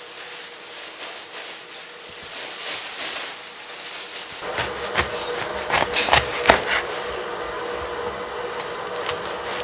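Kitchen knife knocking on a wooden cutting board as citrus fruit is sliced. A cluster of sharp knocks comes in the second half, after a quieter stretch of room noise.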